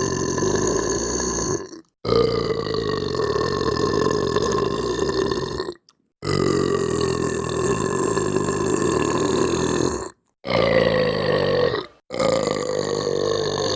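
A person's long, drawn-out belches, one after another. Each lasts about two to four seconds at a fairly steady low pitch, and brief sudden silences separate them: the tail of one, three full belches, then another starting near the end.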